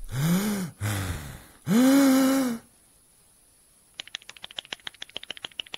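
Three growling monster calls, each rising and falling in pitch, the third long and loud, voiced for a Gamera figure. About a second and a half later comes a rapid run of dry clicks, about ten a second, lasting over two seconds.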